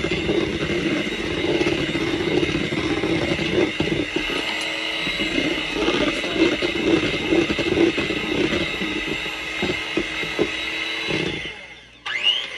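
White electric hand mixer running steadily with its beaters in a thick cream cheese batter. It is switched off about eleven seconds in and winds down, then briefly whines up again and winds down near the end.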